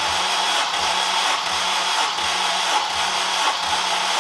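Honda K20A four-cylinder engine being cranked over by its starter motor with the spark plugs out, for a compression test on cylinder four: a steady starter whine with a low pulse about three times a second as the engine turns without firing. The cylinder reads 11.5 bar, a healthy compression.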